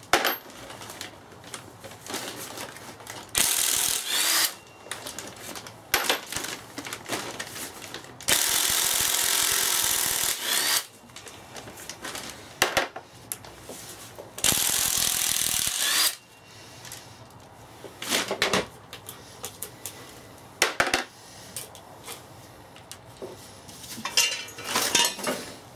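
Cordless impact wrench hammering out the bolts of a gearbox casing. It comes in several spells, the longest about two and a half seconds in the middle, with shorter blips and metal clinks between them.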